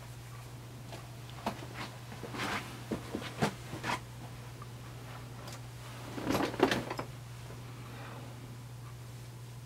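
A man moves about and sits down into a black padded bowl chair: scattered soft knocks and fabric rustles, then a louder rustle and thump about six seconds in as his weight settles into the cushion. A steady low hum runs underneath.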